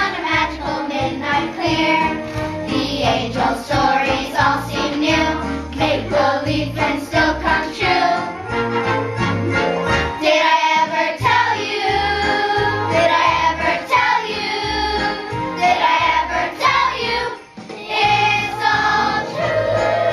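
Children's choir singing a Christmas song over an instrumental accompaniment with a steady bass beat, with a brief break in the sound near the end.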